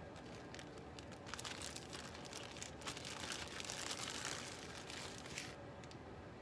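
Plastic food packaging crinkling and crackling as it is handled, for about five seconds before it stops abruptly.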